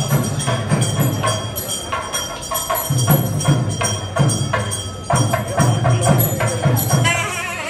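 Percussion music: drum strokes in an uneven rhythm under steady bell ringing and rapid sharp metallic strikes. Near the end a wavering high pitched sound joins in.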